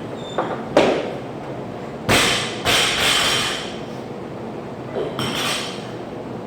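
Several sudden thuds and knocks with short echoing tails: two light ones in the first second, two loud ones about two seconds in, and another about five seconds in.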